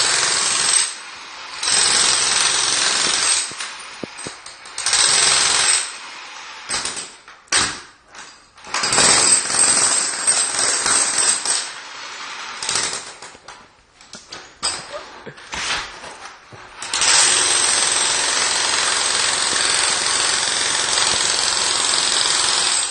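Jackhammer hammering at floor tiles in runs of a second or two, broken by short stop-start bursts, then one long unbroken run of about six seconds near the end.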